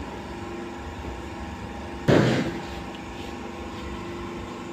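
Coarse aggregate clattering as a wire-mesh sieve of stones is handled and tipped, one short burst of rattling about two seconds in, over a steady background hum.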